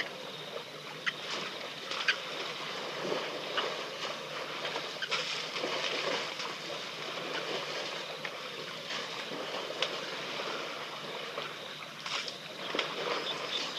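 Outdoor waterhole ambience: a steady rushing hiss of wind and water noise, with scattered short clicks and ticks.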